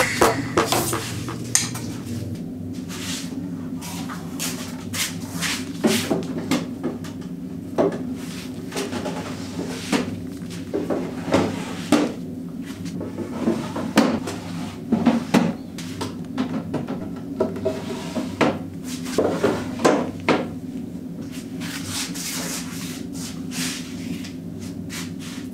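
Wooden drawers being fitted onto metal drawer slides and pushed in: irregular knocks and clunks with short sliding rattles, over a steady low hum.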